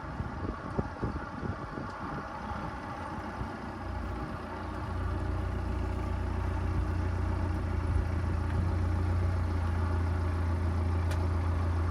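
Car engine running: an uneven low rumble that settles into a steady low drone about four seconds in.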